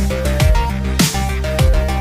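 Electronic background music with a steady beat: deep kick drums about twice a second under a short, stepping synth melody.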